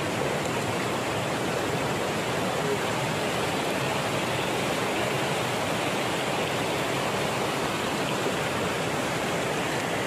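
Shallow stream rushing steadily over rocks.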